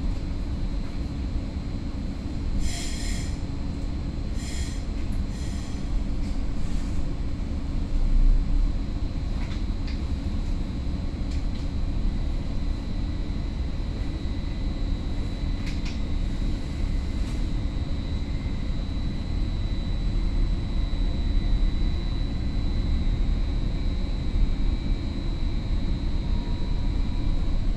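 Interior of a Caltrain Stadler KISS electric multiple unit pulling away from a station and gathering speed: a steady low rumble with a faint high whine that rises slightly in pitch as it speeds up. Three short high beeps sound a few seconds in.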